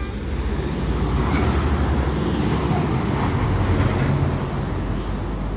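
City bus driving past close by, its engine rumble and tyre noise building about a second in and easing slightly near the end.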